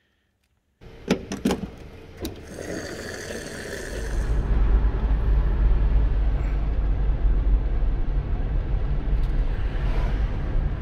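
A car driving, heard from inside the cabin: a few sharp knocks about a second in, then a low road and engine rumble that builds over a couple of seconds and holds steady.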